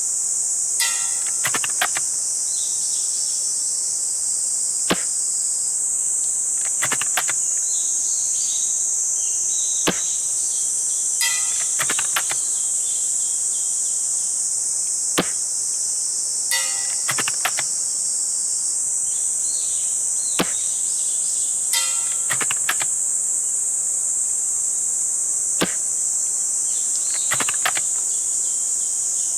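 Spring-powered VSR-10-based airsoft sniper rifle fired about every five seconds, each sharp shot followed a second or two later by a short run of clicks as the bolt is cycled. Insects chirp steadily throughout.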